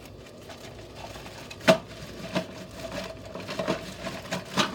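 Plastic toy parts clicking and knocking together as they are handled out of a bag: one sharp knock about a second and a half in, then several lighter clicks.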